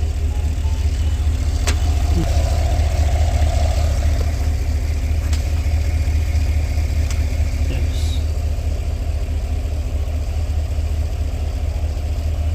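Cadillac Escalade's 6.2-litre V8 idling steadily and smoothly with no misfire, its new spark plugs fitted; a few light clicks are heard over it.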